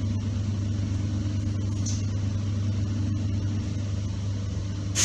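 Steady low hum and running noise inside the passenger car of an ER9P electric train.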